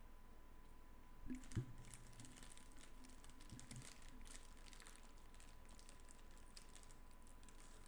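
Faint, irregular clicking and tapping, like typing on a keyboard, starting about a second in and thinning out after a few seconds, with a soft thump near the start of the run.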